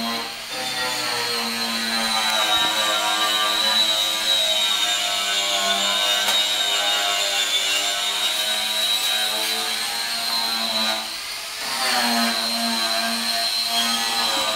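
Electric grinder running steadily with a high-pitched whine. It eases off briefly about eleven seconds in, then picks back up.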